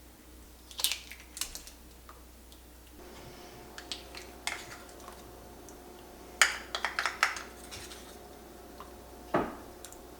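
Sharp clinks and clatters of kitchen utensils against dishes, with a quick cluster of knocks in the middle. A faint steady hum comes in about three seconds in.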